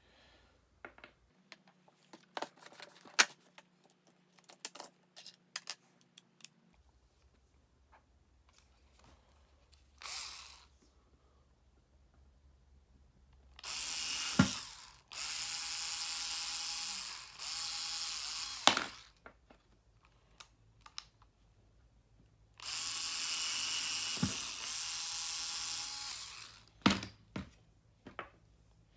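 A small electric power tool running at a steady speed in five short bursts of one to three seconds each, after a stretch of light clicks and taps, with a few sharp knocks near the end.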